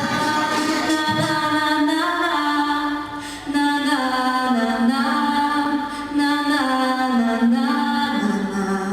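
A woman singing the closing phrase of a song in long, held notes that step from one pitch to the next, with two short breaths between phrases.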